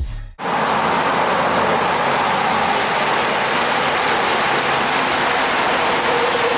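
Steady rain falling, heard as an even hiss.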